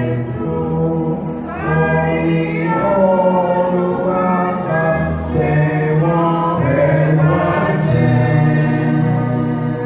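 Church choir singing in harmony, holding long notes that change together from chord to chord.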